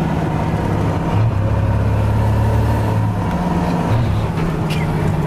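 First-gen Dodge Cummins 5.9-litre inline-six turbo diesel with a 4-inch exhaust, running under load on the road and heard from inside the cab. It is a low drone whose pitch shifts about a second in and again around four seconds in.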